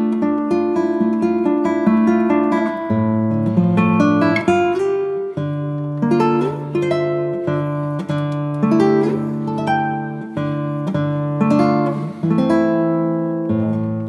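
Background music: an acoustic guitar playing a slow run of plucked notes and chords, each note ringing out and fading.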